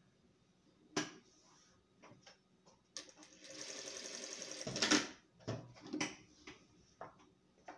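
Industrial straight-stitch sewing machine running a short, steady burst of stitches for about two seconds in the middle, sewing patchwork fabric strips. A sharp click comes about a second in, and a string of clicks and knocks follows after the machine stops.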